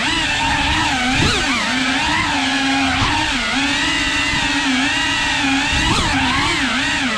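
FPV drone's brushless motors whining in flight, the pitch dipping and rising in quick swings as the throttle is worked, with steadier stretches in between.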